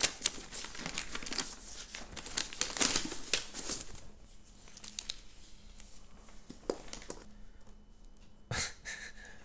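A thick stack of paper sheets rustling and crinkling as it is handled and leafed through. The rustling is busiest in the first four seconds, then thins to a few scattered rustles.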